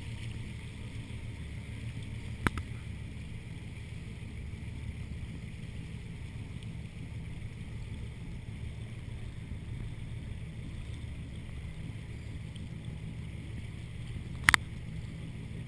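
Hacker-Craft wooden runabout under way: its inboard engine running at a steady cruise with water rushing along the hull. Two sharp knocks cut through, one about two and a half seconds in and a louder double one near the end.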